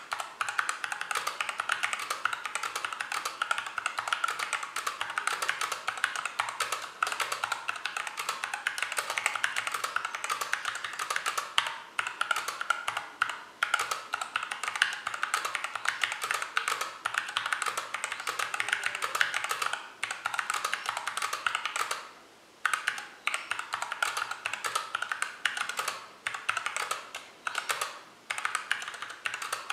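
Fast, continuous typing on a Hexgears GK707 mechanical keyboard fitted with Everglide Crystal Violet switches and thin double-shot ABS OEM-profile keycaps: a dense clatter of keystrokes with a few brief pauses, the longest about 22 seconds in.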